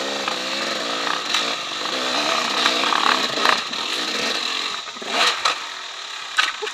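Dirt bike engine revving up and down, with a few sharp knocks later on.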